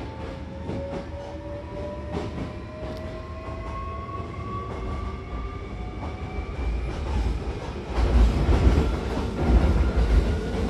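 Hankyu electric train accelerating: the traction motors give a whine that climbs slowly in pitch, over the clack of wheels on rail joints. About eight seconds in, a louder low rumble from the running gear takes over.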